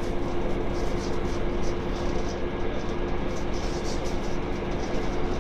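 Passenger train running at speed, heard from inside the carriage: a steady rumble with a constant droning hum through it.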